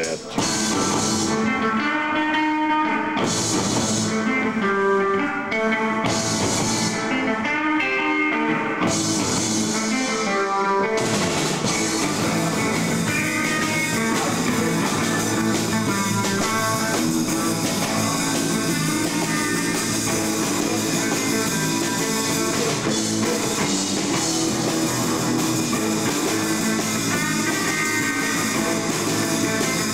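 Live rock band playing: a guitar riff in short stop-start phrases, then from about eleven seconds in the full band with drum kit and cymbals playing continuously.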